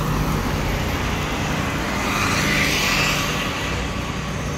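Road traffic: a car engine running close by with a steady low hum, and a rush of engine and tyre noise that swells about halfway through and fades as a vehicle passes.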